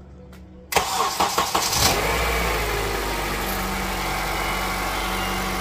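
Honda CR-V engine cranked by the starter and catching about two seconds in, then settling into a steady idle. A cold start on 5W-30 oil that has run 5000 km.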